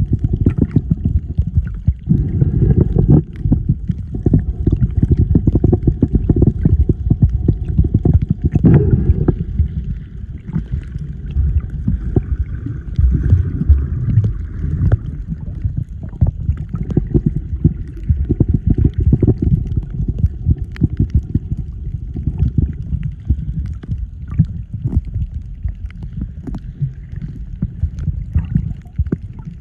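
Muffled underwater rumble and churning water against the housing of a camera carried by a swimmer, with many small knocks and a faint steady hum in the background.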